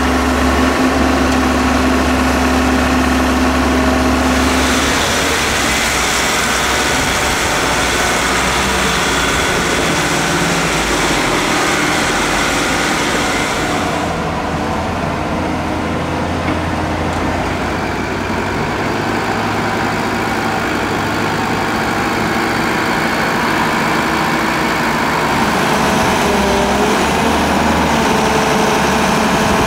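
Diesel excavator and dump truck engines running, idling and working, with no speech; the engine note changes abruptly about 5 and 14 seconds in.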